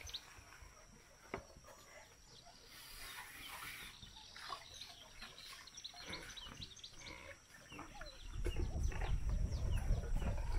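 Birds chirping and calling in the background, in many short scattered notes. A low rumble starts about eight seconds in.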